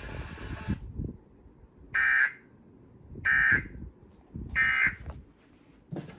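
Three short, buzzy digital data bursts about 1.3 seconds apart: the Emergency Alert System's SAME end-of-message tones, which mark the close of an alert broadcast.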